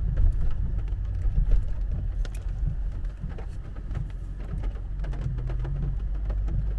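Heavy rain hitting the roof and windshield of a car, heard from inside the cabin as many separate drop ticks over a steady low rumble.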